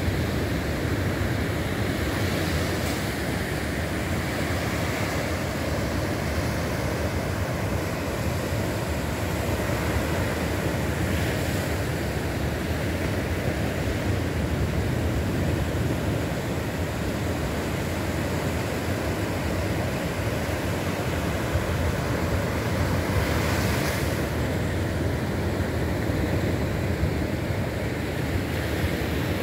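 Ocean surf breaking on a sandy beach: a steady, continuous wash of waves, swelling a few times as bigger waves break.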